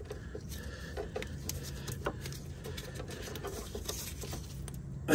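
Irregular light clicks and taps of hand tools on metal, working at a seized front sway bar link fastener.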